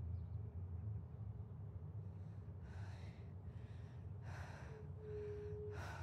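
A person breathing hard in quick, even breaths, about one every 0.7 s, starting about two seconds in and getting louder, with one breath voiced into a short hum. Under it a steady low rumble.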